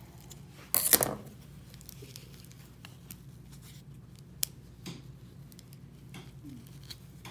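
Scissors snipping thread and being handled on a stone countertop. A loud burst of cutting and handling noise comes about a second in, followed by scattered small clicks and taps.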